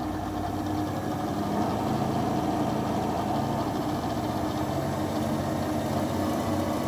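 Clausing Kondia FV-1 vertical knee mill head running with the spindle in low gear: a steady mechanical hum with a few held tones, getting a little louder about a second in.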